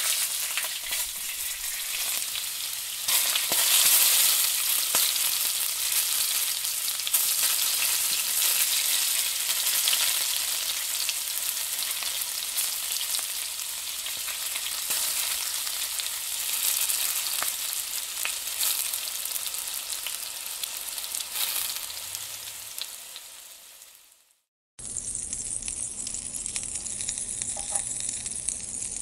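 Besan-coated green chilli rings sizzling in a non-stick frying pan while a wooden spatula stirs them: a steady hiss with small crackles. The sizzle fades away about 24 seconds in, and after a short gap a quieter sizzle starts again.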